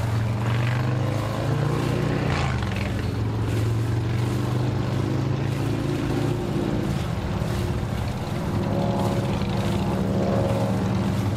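Twin 300 hp outboard motors running at idle, a steady low drone that shifts pitch a couple of times, with a higher engine note joining near the end.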